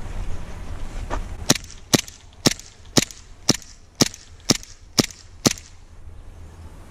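Airsoft gun firing single shots at a steady pace, about two a second, nine sharp cracks in a row, then stopping.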